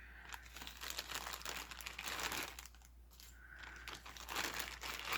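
Faint rustling and crinkling with light clicks as small craft supplies such as jump rings are handled, in two spells with a short lull between.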